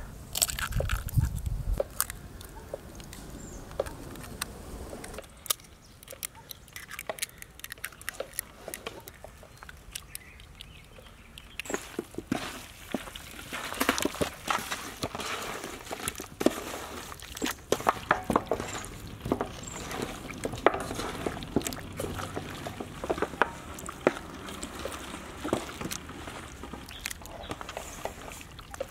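Raw chicken pieces being mixed by hand with eggs and seasoning in a large metal pan: wet squelching and slapping with scattered clicks. The mixing gets busier in the second half.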